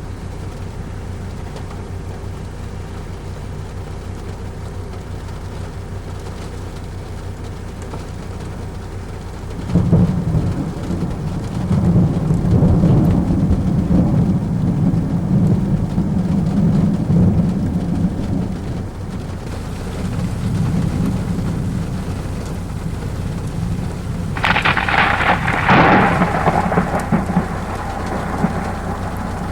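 Thunderstorm with steady rain falling. About ten seconds in a loud thunder rumble sets in and rolls for about ten seconds, and near the end a close lightning strike gives a sharp thunder crack that rumbles on.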